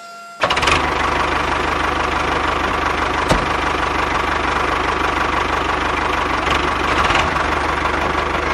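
Tractor engine running steadily with a low knocking throb, starting suddenly about half a second in, with one sharp click about three seconds in.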